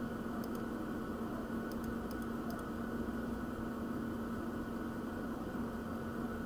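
Steady background hum with one constant low tone, with a few faint computer-mouse clicks in the first few seconds.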